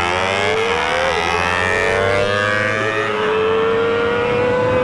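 Kawasaki ZX-25R inline-four, bored up to 300 cc, revving high under hard acceleration. The engine note climbs, drops at an upshift about a second in and again near three seconds, then holds high and nearly steady over wind noise.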